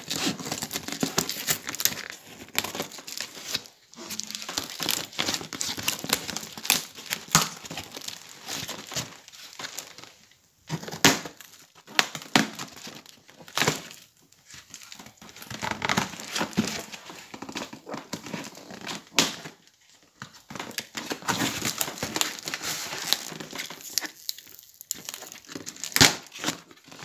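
Packing tape and plastic wrap being torn and peeled off a cardboard box, crinkling and crackling irregularly with sharp rips and short pauses, and a few louder snaps.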